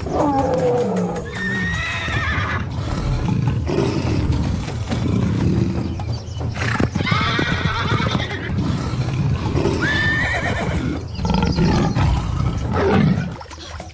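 Animal calls, about five of them, each high-pitched and about a second long, over a steady low rumble.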